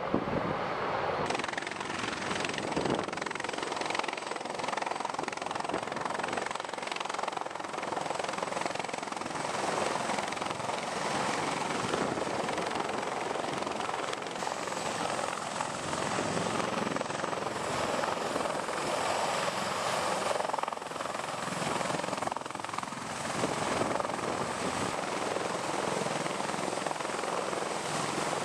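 CH-53E Super Stallion heavy-lift helicopter, its rotors and three turboshaft engines running close by as it hovers low: a steady, dense rotor noise.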